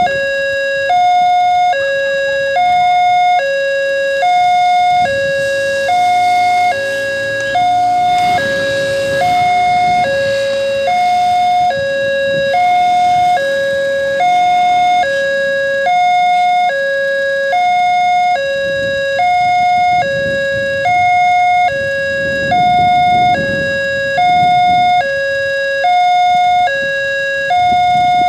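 Railway level-crossing warning alarm sounding its two-tone electronic signal, alternating a higher and a lower note about once a second: the crossing barrier is down for an approaching train.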